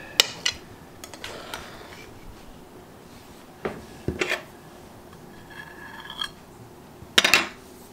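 Metal cake server and fork scraping and clinking against ceramic plates as a slice of frosted cake is cut and lifted onto a plate. Scattered clinks, with a louder cluster of clatter near the end.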